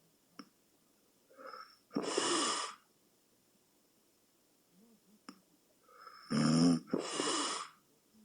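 A sleeping person snoring: two loud breaths about four seconds apart. The second is a low, pitched snore followed at once by a breathy rush of air. A small click comes before each breath.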